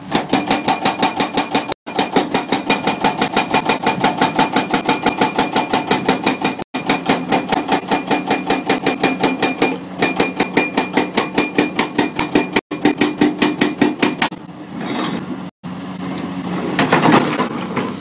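Hydraulic rock breaker (CMB CM 550 TP on a Caterpillar 345 excavator) hammering, a fast, even train of blows, several a second. About fourteen seconds in the hammering stops and a rougher, irregular noise takes over, growing louder near the end.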